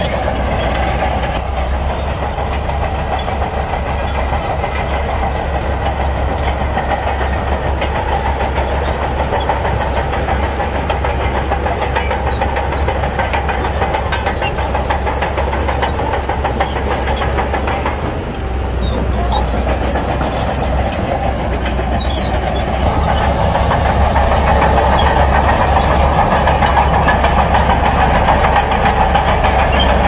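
Shantui crawler bulldozer's diesel engine running under load with the clatter of its steel tracks as it pushes a load of sand. The sound dips briefly just past the middle, then grows louder for the last third.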